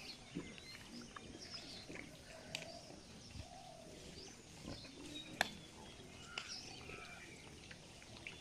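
Faint outdoor ambience with scattered short bird chirps and a few sharp clicks, the loudest about five and a half seconds in.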